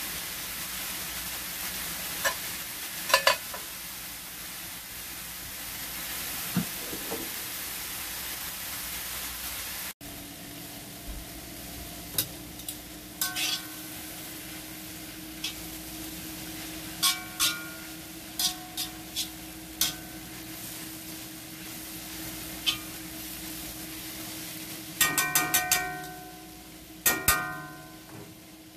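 Vegetables sizzling in a hot wok while metal tongs stir and toss them, clinking against the pan, several times in quick succession near the end. The sizzle is louder in the first part; after an abrupt break it is softer, with a steady hum underneath.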